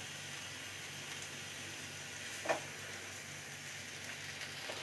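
Paneer frying in oil in a pan, a faint steady sizzle. A single light knock sounds about halfway through.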